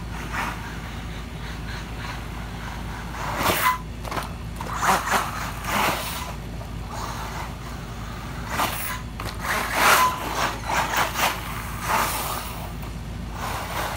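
Radio-controlled truck driven in short throttle bursts on loose dirt: its motor whines briefly and its tyres spin and scrape through sand, about eight bursts over the last two-thirds.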